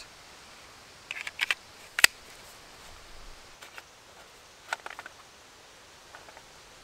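A knife pushed into a hard Kydex sheath: a few light clicks, then one sharp snap about two seconds in as the blade locks into the sheath's retention. A few smaller clicks and rustles follow near five seconds as a cloth drawstring pouch is handled.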